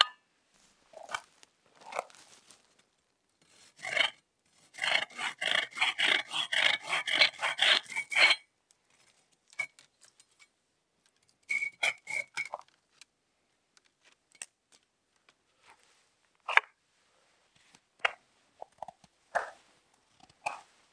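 Silky Bigboy folding pruning saw cutting through a thin green branch: a quick run of even push-pull strokes, about four a second, for some four seconds, then a shorter run of strokes about halfway through. Near the end come a few single scraping strokes of a knife shaving wood.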